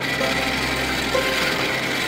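Feathers being pulled by hand from a chicken carcass: a steady rasping, rubbing noise.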